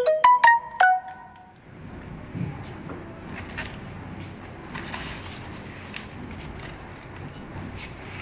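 A quick run of four or five short squeaks, each at a different pitch, within the first second as the plastic label reel is twisted tight on its spindle. After that come faint handling noise and soft clicks on the labeling machine.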